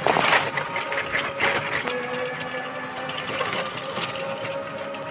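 Small open-sided three-wheeler running along a road, its motor giving a steady hum under a rapid rattle of the body, with a couple of louder jolts in the first second and a half.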